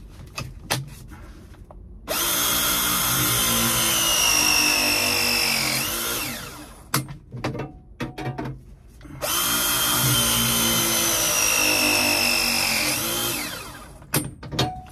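Battery-powered copper press tool making two press cycles on a coupling in a half-inch copper water line, one for each end. Each cycle is a motor whine of about four seconds whose pitch sinks slowly as the jaws close, then trails off, with handling clicks before and between the two presses.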